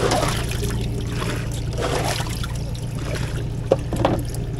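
Water splashing and trickling in a boat's flooded live well full of freshly caught catfish, over a steady low hum. There is one sharp click about three and a half seconds in.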